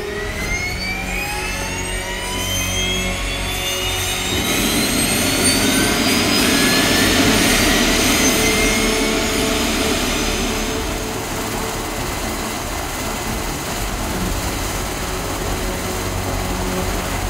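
BK 117 helicopter's turbine engine starting up: a whine that rises steadily in pitch over the first ten seconds or so, with a rushing noise building from about four seconds in, then settling into a steady running whine.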